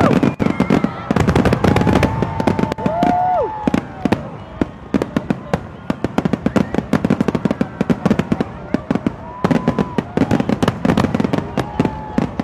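Aerial fireworks bursting in quick, irregular succession, with dense crackling throughout and a few short pitched glides rising and falling over it.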